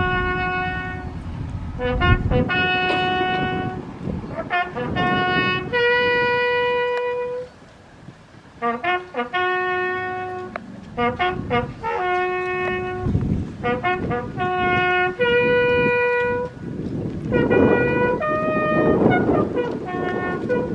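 Solo trumpet playing a military bugle call in the open air: a line of single notes, short ones leading into long held ones, with a brief pause about seven and a half seconds in.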